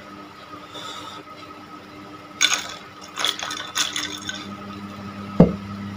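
Liquid squeezed from a soaked sanitary pad splashing into a glass in a few short spurts, followed by a single sharp thump near the end.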